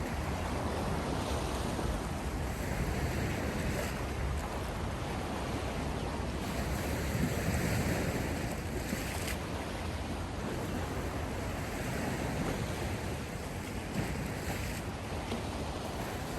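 Sea waves washing onto the shore, swelling and falling back every few seconds, with wind rumbling on the microphone.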